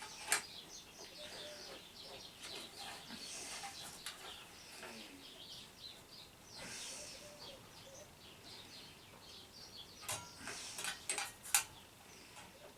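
Faint birdsong, many short high chirps, with a few sharp clicks and knocks of small metal parts being handled at the start and again about ten seconds in.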